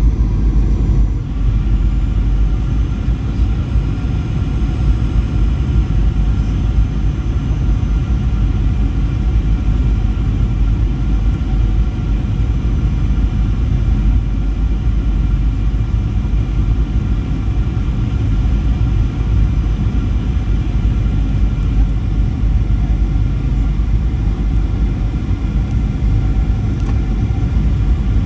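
Inside the cabin of a Boeing 737: a steady, loud rumble of jet engines and airflow, with faint steady high tones over it.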